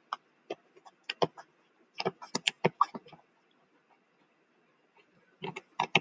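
Stylus tapping and scratching on a touchscreen in short clicks while writing by hand, stopping after about three seconds.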